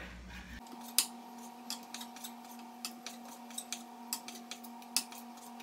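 Kitchen knife cutting raw filet mignon into cubes on a wooden cutting board: irregular sharp knocks of the blade on the board, a few each second.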